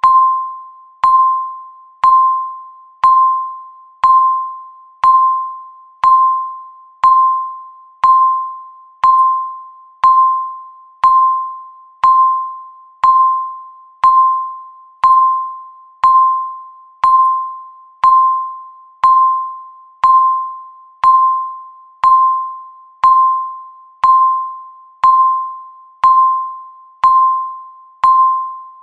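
Countdown timer beep sounding once every second: a short, bright tone that fades quickly after each strike, repeating evenly.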